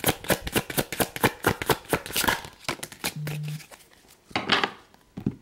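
Oracle card deck being shuffled by hand: a rapid run of soft card clicks, about ten a second, that stops about two and a half seconds in. A short low hum follows, then a brief rustle of cards near the end.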